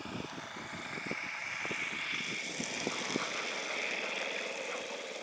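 Radio-controlled Piper Cub model airplane's engine and propeller running at low throttle as it comes in to land and rolls out on the grass. The engine note rises slightly partway through, then holds steady.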